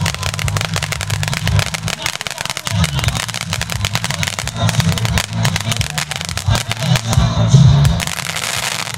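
NV148 Magic Whip w/ Boom novelty firework sputtering and crackling as it burns, then going off in a loud bang about seven and a half seconds in.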